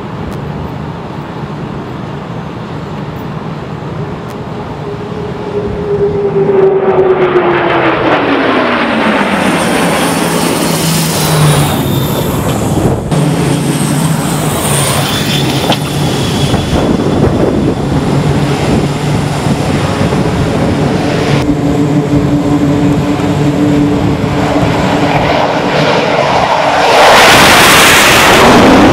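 Jet aircraft engines during recovery on an aircraft carrier's flight deck. An approaching jet's engine tone falls in pitch as it passes, followed by a long stretch of loud, steady engine noise. Near the end another jet passes low overhead, the loudest moment.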